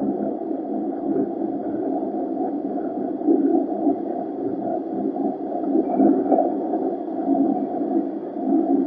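LSWR O2 class 0-4-4 tank locomotive running along the line, heard close up from its side tank as a steady muffled rumble that swells unevenly.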